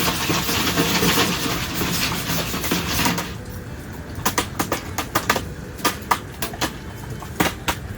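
A Jiffy Pop foil pan is shaken on a wood stove top with a steady scraping, rattling noise for about three seconds. The shaking stops suddenly and the kernels pop: scattered sharp pops that come faster toward the end.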